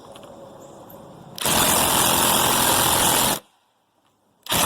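20-volt Stanley cordless impact driver hammering on a half-inch bolt head in two bursts, about two seconds and then about one second, with a short pause between. It fails to turn the bolt at all.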